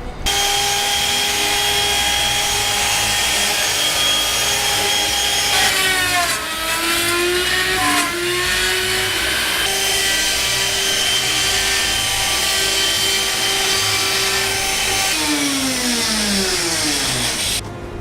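Electric power tool running into wood with a steady motor whine. The pitch sags under load about six seconds in and recovers, then the motor winds down and stops near the end.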